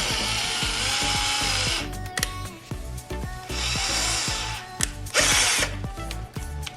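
Compressed air from an air compressor hissing out through a nozzle pin into a 3D-printed chocolate mould to blow the chocolate free. It comes in three bursts: about two seconds at the start, about a second in the middle and a short one later on.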